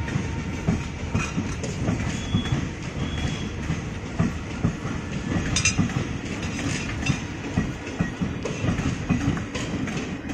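Passenger train coaches rolling past close by: a steady rumble with wheels clicking and knocking over the rail joints. A few short, high wheel squeals sound along the way, the sharpest about halfway.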